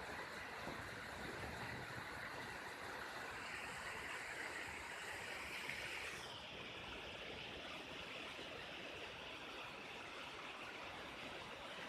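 Water flowing in a stream, a steady rushing; the sound turns duller a little past halfway as its higher part drops away.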